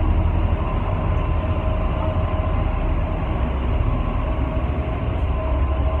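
Steady low rumble of a ferry's engines, with a faint steady hum above it.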